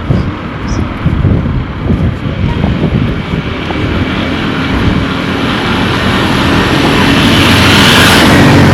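A motor vehicle approaching and passing close by: engine and rushing noise build steadily over several seconds to a peak near the end, then begin to fall away.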